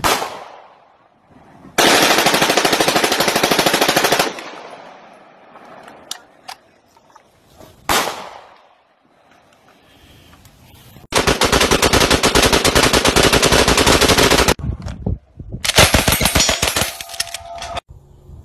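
Gunfire from several different firearms, cut together: a single sharp shot at the start, then a burst of rapid fire lasting a couple of seconds. Later comes another lone shot, and after it two long bursts of rapid fire of about three seconds and two seconds.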